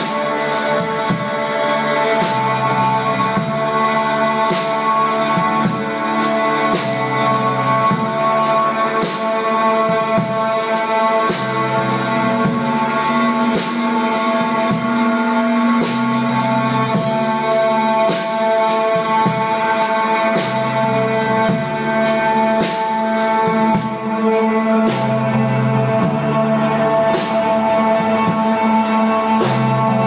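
Instrumental post-rock played by a band: guitars and keyboard hold a steady drone while a low bass part moves from note to note every second or two. Drums and cymbals are struck loosely and irregularly all through.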